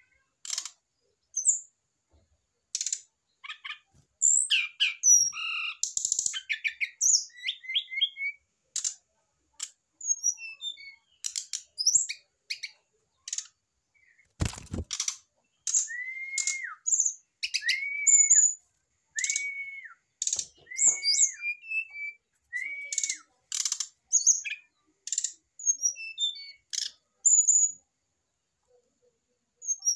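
Brown-chested jungle flycatcher calling: a busy run of short, sharp chirps and twitters, then five arched whistled notes about a second and a half apart. A single dull thump comes just before the whistled notes.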